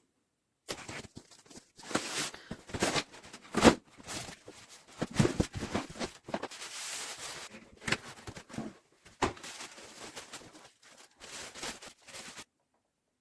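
Packaging being handled during an unboxing: rustling and tearing of cardboard and plastic, with irregular knocks and thumps. The loudest thump comes a little under four seconds in. The sound starts and stops abruptly.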